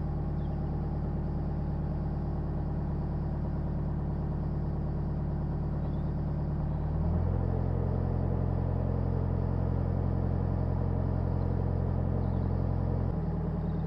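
Narrowboat's inboard engine running steadily while the boat is under way. Its note changes and grows slightly louder about halfway through, then returns to the first note near the end.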